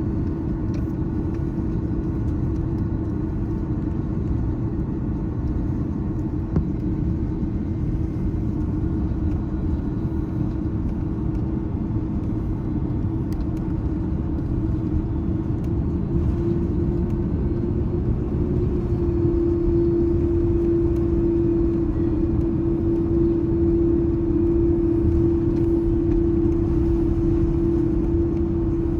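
Steady cabin noise of an Airbus A330-300 airliner in flight: a low rumble of engines and airflow with a steady hum, which grows louder about two-thirds of the way through.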